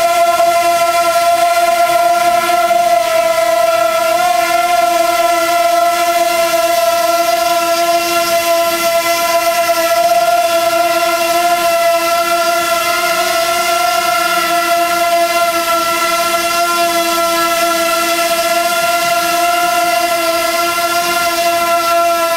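Wingsland S6 pocket quadcopter hovering, its small propellers giving a steady high-pitched whine with a slight waver in pitch.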